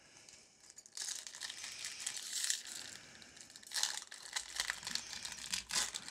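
Foil Pokémon booster-pack wrapper crinkling and tearing as the pack is ripped open by hand and the cards are pulled out. It starts about a second in, with louder crackles and rips coming and going throughout.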